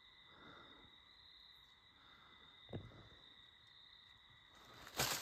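Steady high drone of night insects, with one short low thud about two and a half seconds in. Near the end, dry fallen leaves crunch and rustle loudly underfoot.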